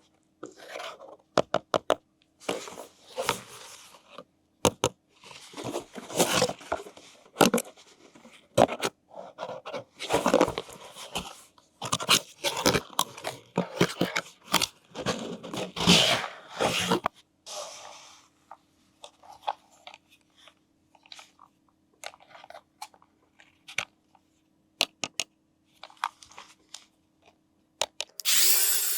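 Crinkling, crunching and tearing of toy packaging being unwrapped, with scattered clicks. A louder, longer rasping noise starts just before the end.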